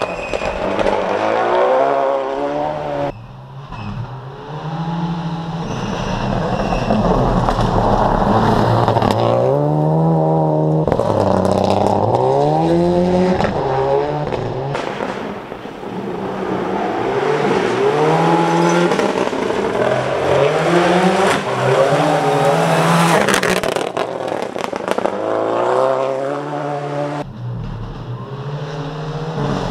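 Rally car engine revving hard, its pitch climbing and falling back again and again as it accelerates and lifts off, with tyre and gravel noise underneath.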